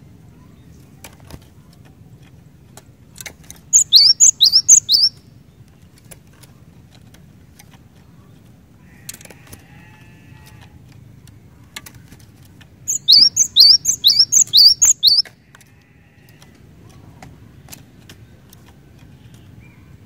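Cinereous tit (glatik batu) singing: two loud bursts of a quick, high two-note phrase repeated, about four times early and about six times some nine seconds later. A faint low hum runs underneath.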